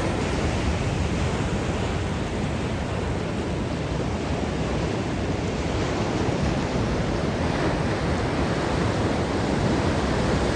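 Ocean surf breaking and washing up a sandy beach, a steady rushing noise with no let-up.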